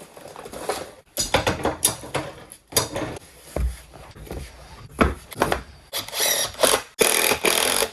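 Metalworking tool noise on steel: irregular scraping and knocks, broken off abruptly twice like edited cuts.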